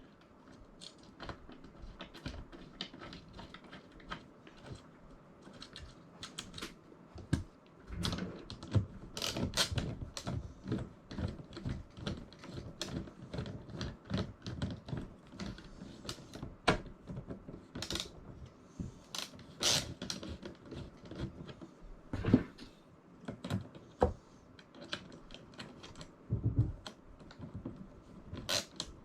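Hands handling and fitting small hardware parts: a run of irregular light clicks and taps, with a few louder knocks now and then.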